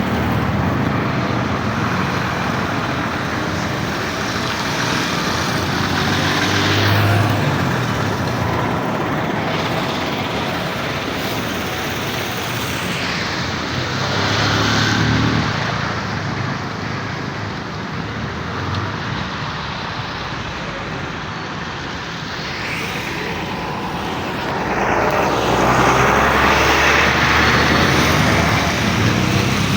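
Road traffic: several vehicles pass one after another as a steady wash of engine and tyre noise, with the loudest passes about a quarter and half of the way in and near the end.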